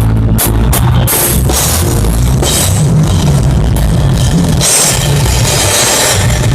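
Loud live band music without vocals: a drum kit with quick hits in the first second and a cymbal wash around five seconds in, over a heavy bass line.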